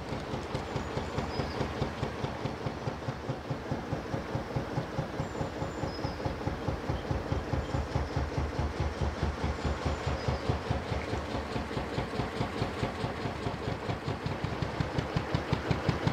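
A narrowboat's traditional slow-revving Petter McLaren B2 engine running under way, with an even, rhythmic beat that grows a little louder near the end.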